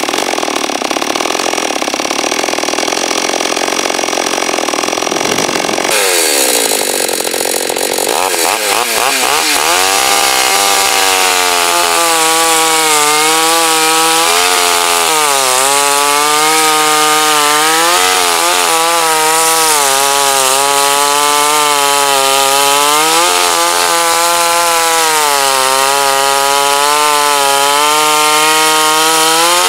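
Petrol two-stroke chainsaw cutting wood at high revs. About six seconds in the pitch drops, then the engine runs on under load with its note wavering as the chain bites.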